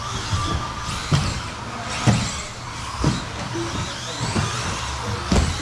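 1/10-scale electric RC off-road buggies racing on a carpet track: motors whining as their pitch rises and falls, with a sharp knock about once a second from the cars landing or hitting the track.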